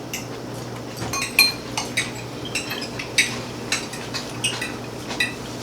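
Forks and other cutlery clinking and scraping against plates during a meal, in a series of short, irregular clinks over a steady low hum.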